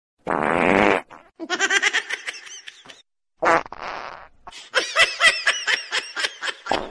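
A comedic fart sound effect, twice, each followed by a run of quick high-pitched laughter.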